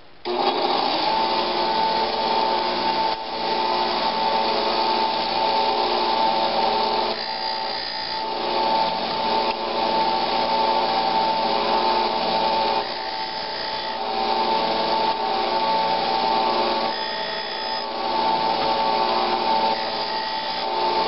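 Bench disc sander running, starting suddenly, with the end of a steel chisel held lightly against the abrasive disc and worked front to back. It is grinding the chisel's edge square to take out a nick.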